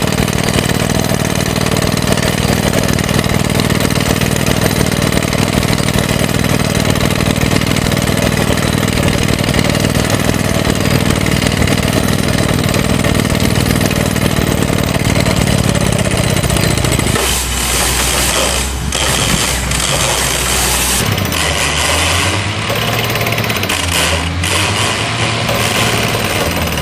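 Crawler-mounted pneumatic rock drill rig hammering a blast hole into rock: a dense, continuous percussive noise over its running engine. About two-thirds of the way through the hammering stops, and the engine runs on with its pitch shifting.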